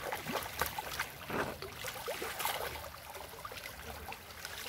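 Shallow muddy stream running and trickling, with scattered short splashes and scrapes as a hoe works in the water and mud.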